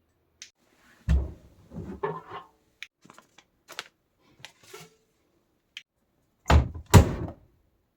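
Washing machine being loaded and shut: a thud about a second in, then rustling and small clicks, then two heavy thuds half a second apart near the end as the door is closed.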